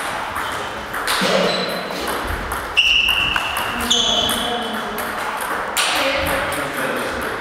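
Table tennis doubles rally: the ball clicking off paddles and the table in quick succession, with a few short high squeaks between hits.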